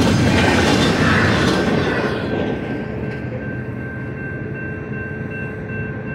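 The last cars of a double-stack intermodal container train rumble over the crossing. The rumble fades about two seconds in as the train clears. A crossing signal bell keeps ringing steadily over the fading sound of the departing train.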